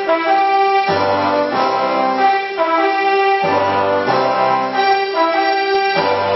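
Brass-led band music playing an anthem in long held notes, phrase after phrase.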